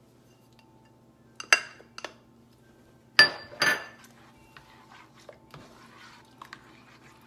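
A spoon clinking against a pot of marinara sauce while the basil is added and stirred in: four sharp ringing clinks, two of them loudest in the middle, then soft scraping and stirring.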